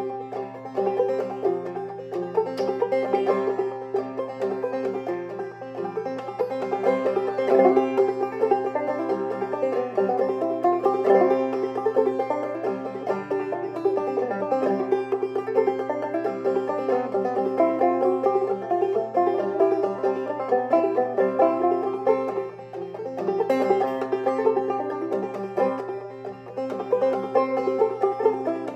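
A 2017 Ome Flora open-back banjo with a 12-inch pot and rolled brass tone ring, played clawhammer style in double C tuning. It is a steady run of brushed and plucked notes, an old-time tune with no accompaniment.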